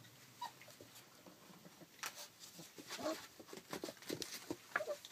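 Rough collie puppies scrambling and tussling on puppy pads: a quick patter of small paws and light knocks, busiest from about two seconds in, with a few short high squeaks.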